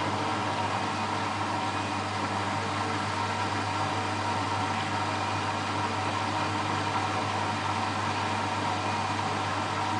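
Beko WMA642 washing machine in its spin cycle: a steady motor and drum hum with several steady tones, holding one speed with no change.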